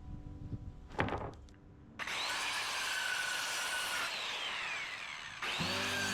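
Power saw cutting through a deck board: a short clatter of clicks, then about two seconds in the saw starts a cut, its motor whine rising and then falling under the steady noise of the blade in the wood, with a second cut starting near the end.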